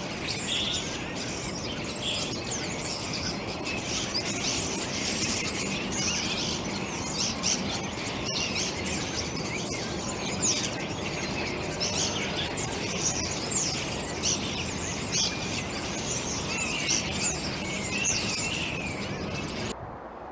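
Several birds chirping and calling in quick, overlapping short notes over a steady background hiss. The birdsong and hiss cut off abruptly near the end.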